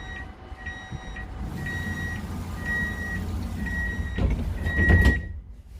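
Tram door-closing warning: a high beep repeating about once a second, six times, over the tram's low rumble, then the doors closing with two loud knocks near the end.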